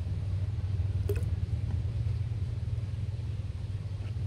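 Steady low rumble, with one faint click about a second in.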